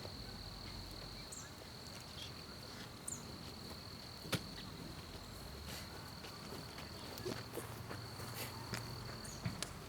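An insect trilling steadily on one high note, with scattered sharp pops and ticks of a crackling campfire; the loudest pop comes a little over four seconds in.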